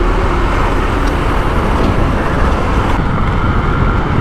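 Steady wind rush and road noise while riding a Honda Shine commuter motorcycle in traffic, with the bike's engine and passing vehicles running underneath.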